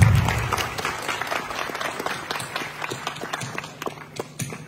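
Audience applauding, the clapping thinning out and fading away over a few seconds.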